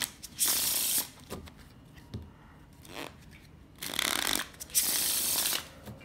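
A deck of playing cards being riffle-shuffled by hand: two quick fluttering riffles, about half a second in and again near five seconds in, with softer rustles and taps of the deck being handled in between.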